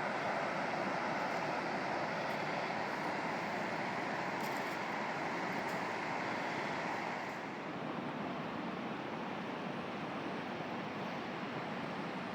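Steady rushing of river water, a dense even noise; about seven seconds in it turns slightly quieter and duller.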